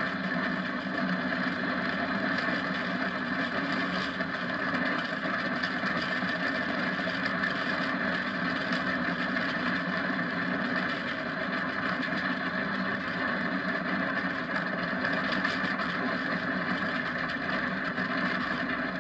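Steady rushing wind and road noise on an onboard camera as a kart runs fast downhill, with no changes or breaks.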